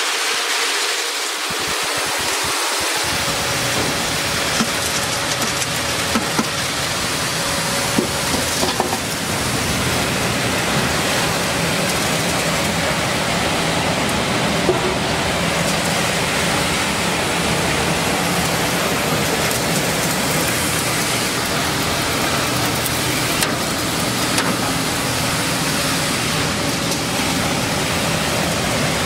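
PD2 maize grits milling machine running while it grinds dried corn kernels: a loud, steady mechanical noise with a few sharper clicks now and then.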